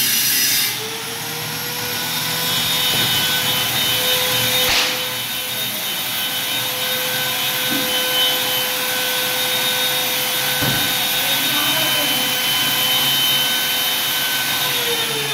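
Electric power-tool motor running with a steady high whine. It spins up about a second in and winds down near the end, with a sharp knock about a third of the way through.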